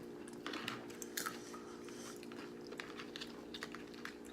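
Mouth-close crunching and chewing of Nacho Cheese Doritos tortilla chips: scattered crisp crackles, the loudest cluster about a second in. A steady low hum runs underneath.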